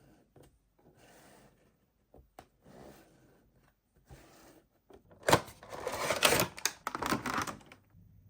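Toy packaging being handled: soft rustling at first, then loud crackling and clicking of plastic and cardboard from about five seconds in, lasting a couple of seconds.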